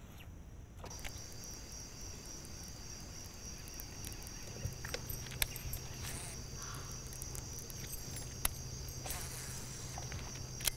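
Steady high-pitched drone of insects, starting about a second in. A few light clicks sound, and a faint low hum joins about halfway.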